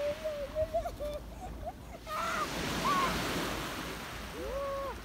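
Small waves breaking and washing onto a pebble shore, swelling and fading in slow surges, with the loudest surge a couple of seconds in. Short, high, wavering calls sound faintly over the surf.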